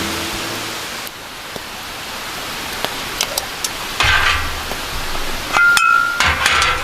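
Light clinks and knocks of small hard objects over a steady hiss, with a short ringing ping a little under six seconds in and a busier patch of clattering near the end. Background music fades out at the start.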